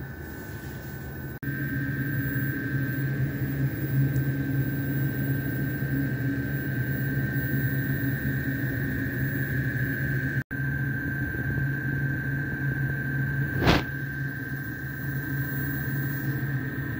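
Workshop machine motor running steadily: a low hum with a steady high-pitched whine over it, broken by two brief drop-outs. One sharp click about three-quarters of the way through.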